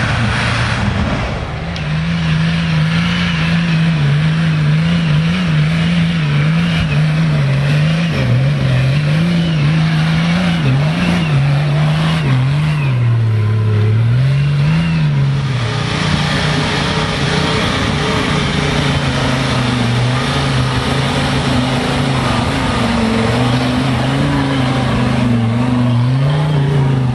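Off-road 4x4 engines revving hard under load as they climb a steep, muddy slope, the pitch rising and falling unevenly with the throttle.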